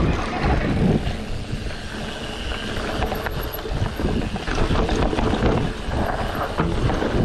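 Wind buffeting the microphone during a mountain-bike ride, with an uneven low rumble and scattered knocks from the bike running over rough ground.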